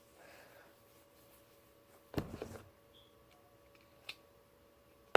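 Handling noises from supplies on a table: a short clatter about two seconds in, then a single click near the end, over a faint steady hum.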